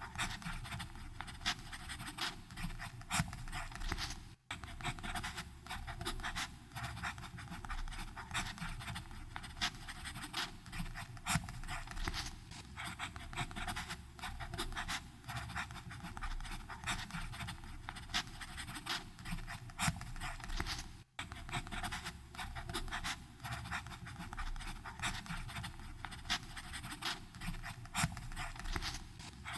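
Fountain pen nib scratching across paper in continuous, irregular writing strokes, with two very brief breaks.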